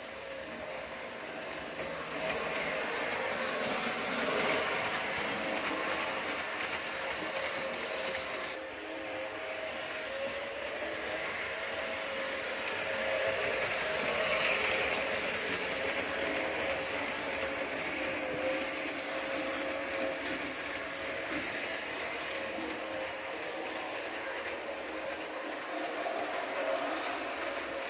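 H0-scale model locomotive running on the layout with Silberling coaches: a steady electric motor hum with a thin whine, mixed with the rolling of small wheels on the track, swelling a little as the train comes nearer about four and fourteen seconds in.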